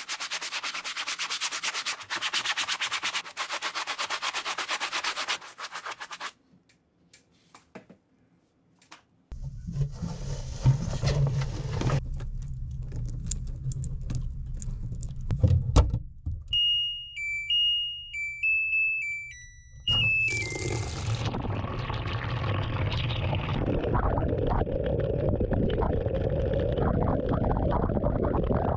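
Brisk scrubbing of a wet sneaker for about six seconds. After a pause, a washing machine starts with a low rumble, plays a short melody of beeps, then runs with a steady rumbling wash.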